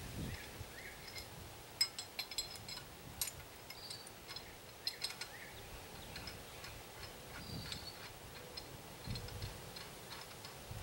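Irregular runs of sharp metallic clicks from a hand-worked hoist on a wooden lifting gantry, bunched about two and five seconds in. Faint bird chirps can be heard now and then.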